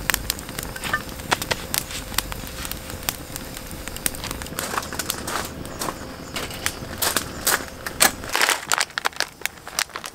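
Wood fire of split firewood crackling in a fire pit, with sharp, irregular pops and snaps that come thicker near the end.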